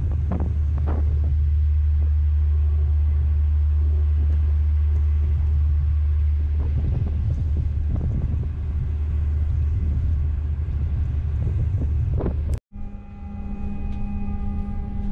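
Steady low rumble of a passenger ferry's engine, with wind on the microphone. Near the end it cuts off abruptly, and a steady sound of several held tones follows.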